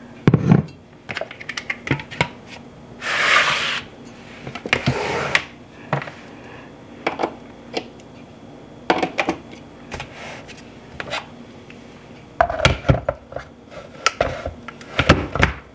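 Clicks, knocks and clunks of a glass blender jar and its plastic lid being handled and set onto the blender's motor base, with the plug pushed into a wall socket. A short rustling hiss comes about three seconds in, and the heaviest clunks come near the end.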